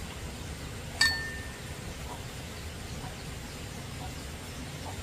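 A single sharp metallic clink about a second in, ringing briefly at a high pitch over a steady low background noise.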